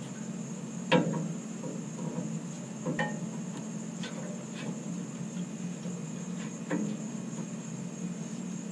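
Metal clicks and clinks of a Ford F-150 rear brake caliper being handled and seated back over its new pads and shims. Three sharper knocks come about one, three and nearly seven seconds in, over a steady low hum.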